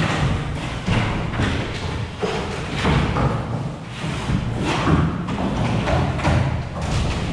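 Irregular thuds and scuffs on bare wooden floorboards as a dog lunges, grips and tugs at a handler's bite suit and the handler shifts his feet.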